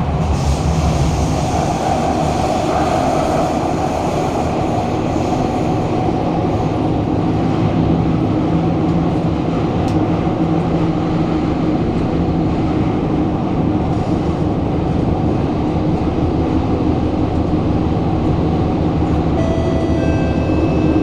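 Kawasaki-CRRC Sifang CT251 metro train running at speed, heard inside the carriage as a steady rumble of wheels and motors on the rails, with a brief hum about two seconds in. This carriage has severe flat wheels.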